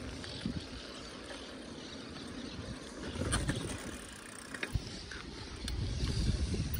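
Wind noise buffeting the microphone and tyre noise on a moving bicycle, with a few sharp clicks and rattles. It gets louder near the end.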